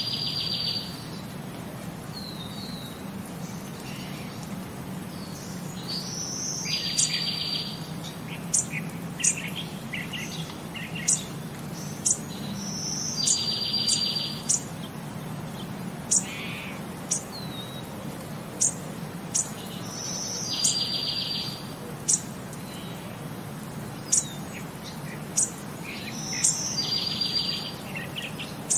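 Birds chirping: sharp high chirps about once a second, and a short buzzy trill that comes back about every seven seconds, over a steady low hum.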